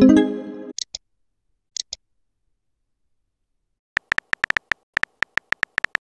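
Chat-app sound effects: a pitched message-received chime rings out and fades at the start, followed by two short high ticks. After a gap of about two seconds, rapid, evenly spaced keyboard typing clicks begin about four seconds in.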